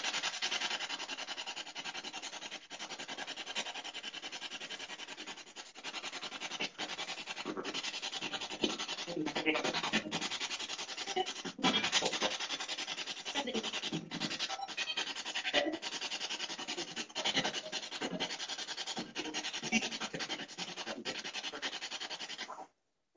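Steady electronic static hiss, chopped by many brief dropouts, with faint voice-like fragments surfacing in the middle. It starts and cuts off abruptly.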